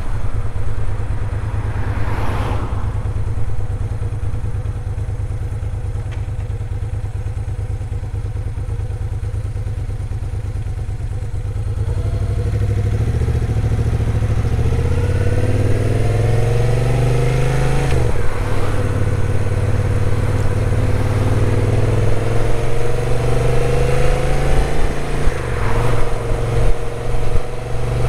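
Moto Guzzi V7's air-cooled V-twin engine running steadily at low revs, then accelerating from about halfway with rising revs. There is a gear change, where the revs drop, a few seconds later, and the revs climb again before another change near the end.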